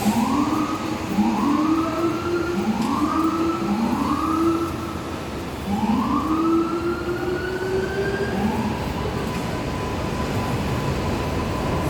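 A subway train's AC traction motors whining in a series of rising pitch sweeps as the train pulls away. Each sweep climbs for about a second and then starts again lower. This is typical of an R188 on the 7 line, and the whine settles into one steady tone about eight seconds in.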